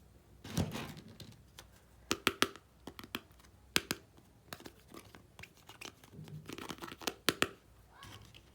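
Small plastic toy kitchen pieces being handled: a string of sharp clicks and taps, several in quick succession, mixed with some rustling and crinkling.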